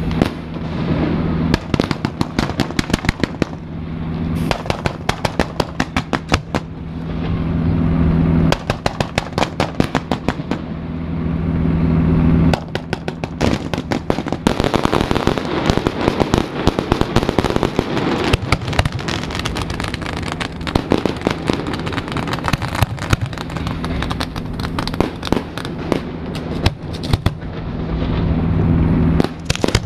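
Fireworks display fired from a barge close by: rapid shell bursts and bangs, thickening into dense crackling in the middle. A steady low hum from the tugboat's engine runs underneath.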